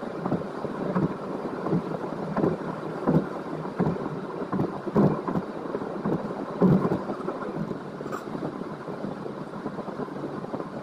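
Road and wind noise of a car driving at highway speed, heard from inside the car, with irregular low thumps every second or so.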